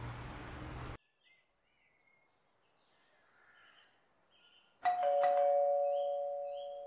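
Two-tone electric doorbell chime: a ding-dong about five seconds in, the higher note and then the lower one ringing on and fading slowly.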